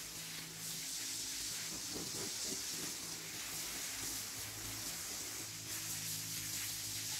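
Self-service car-wash pressure-washer lance spraying water onto a car: a steady hiss, with a low hum underneath.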